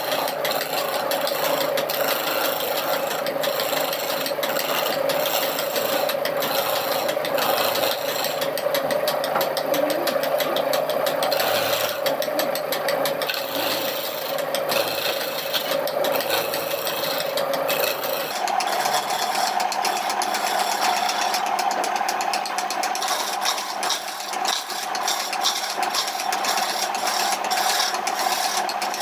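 Electric power tool motor running steadily while working wood, with a rasping, grinding noise over a constant hum. About two-thirds of the way through, the hum abruptly jumps to a higher pitch.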